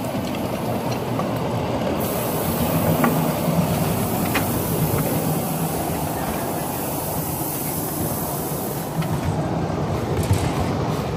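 A 1/8-scale live steam train running along its track: a steady rumble of wheels on rail, with scattered sharp clicks.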